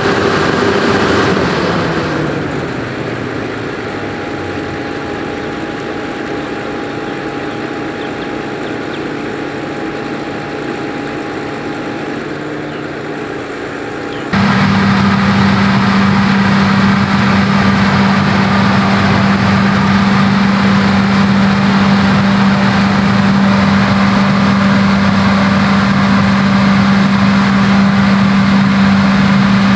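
Heavy harvest-machinery engines running. About two seconds in the engine note drops and the sound gets quieter, with a steady whine over it. About 14 seconds in it switches abruptly to a louder, steady engine drone with a strong low hum.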